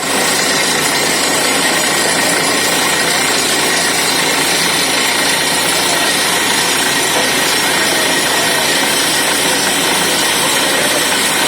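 Borewell drilling rig running, a loud, steady mechanical noise with a dense hiss and a few constant whining tones.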